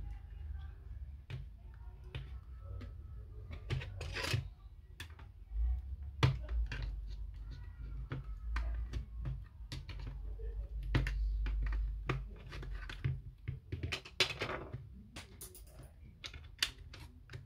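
Irregular clicks, taps and light clinks of small tools and parts being handled while an Apple Time Capsule is taken apart, over a low rumble.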